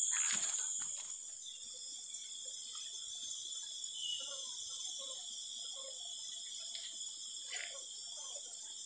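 A steady, high-pitched chorus of insects droning in several layered tones, with a few faint rustles of handling near the start.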